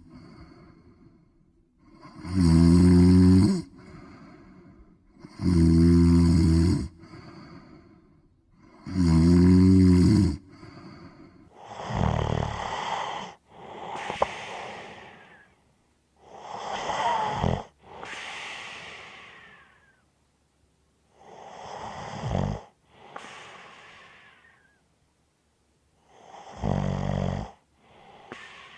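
Loud snoring in steady cycles: first deep, rattling snores about every three and a half seconds, each followed by a softer breath out, then, a little before halfway, lighter and breathier snores, each a noisy breath in and out.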